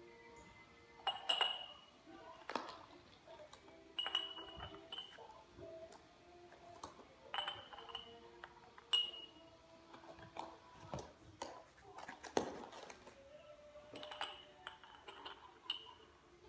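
Metal hydraulic lifters clinking against a glass mason jar as they are set into it one by one: a series of irregular knocks, each with a short glassy ring.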